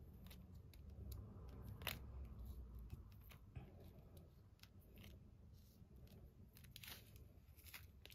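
Faint, irregular clicks of loose resin diamond-painting drills being gathered up and put back into a small zip bag.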